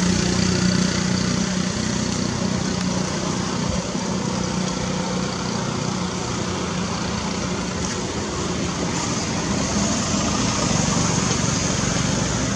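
A steady engine-like hum, as of a motor running at idle, over a constant hiss.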